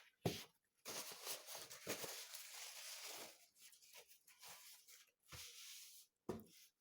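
Arabic flatbread being torn and handled by hand: a rustling, tearing sound with small clicks, fading off after about three seconds.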